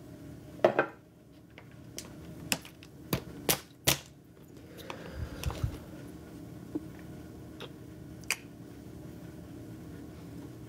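A run of sharp clicks and knocks, about eight over several seconds, with a few dull low thumps in the middle: a ceramic mug and a plastic water bottle being handled.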